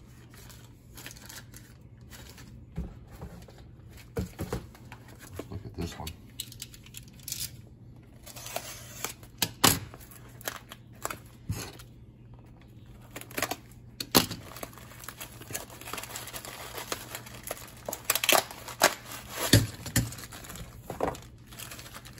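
Clear plastic packaging crinkling and rustling as it is handled and unwrapped, with scattered sharp clicks and taps, growing busier about a third of the way in.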